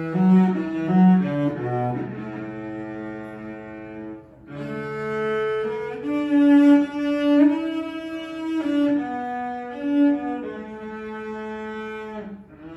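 Solo cello playing a slow melody of long bowed notes. A brief break comes about four seconds in, after which the line moves into a higher register.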